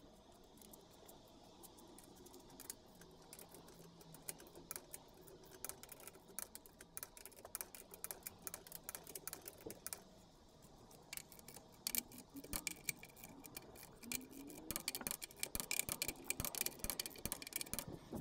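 Faint scattered metallic clicks and rattles from a floor jack being worked, coming thicker in the second half.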